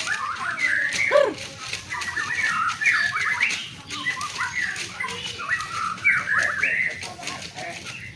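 White-rumped shama (murai batu) singing: a fast, varied run of whistled and chirping notes, one after another with hardly a pause.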